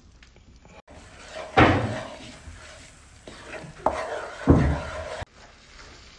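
A silicone spatula stirs flour into bubbling melted butter in a nonstick frying pan to make a roux. It scrapes over a light sizzle, with two louder strokes about one and a half and four and a half seconds in.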